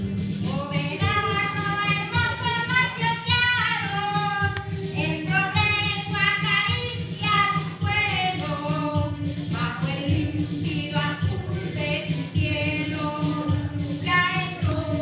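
A young girl singing a hymn solo, one sung line after another with held notes, over a steady low hum.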